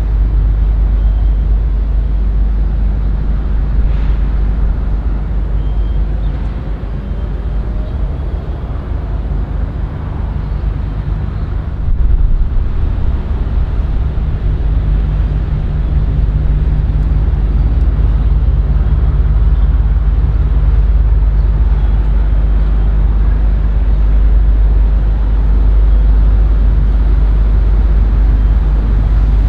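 Steady low engine rumble with a hum, mixed with traffic noise, with a brief dip in level partway through and a step up about twelve seconds in.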